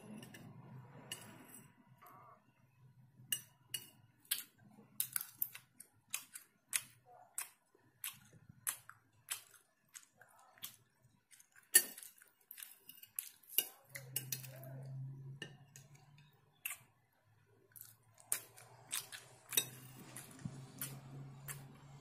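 Metal spoon clinking and scraping against a ceramic plate in many sharp, irregular ticks while picking at food.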